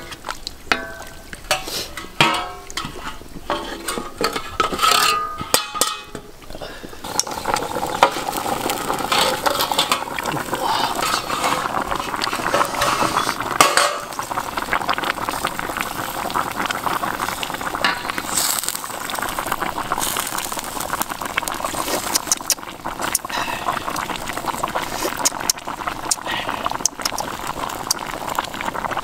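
A wooden spatula scrapes and knocks against a steel wok as sauce is spooned over a whole chicken. From about seven seconds in, the sauce simmers with a steady bubbling and crackle, broken by the odd sharp click.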